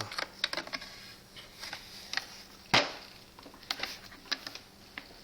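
Plastic parts of a Hoover Max Extract Dual V carpet cleaner being handled: a run of light clicks and knocks, with one louder knock a little under three seconds in.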